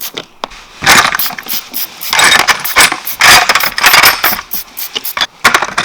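Small metal parts, such as screws, washers and bolts from the bandsaw, clinking and rattling against one another as they are handled and sorted, in several bursts of clatter.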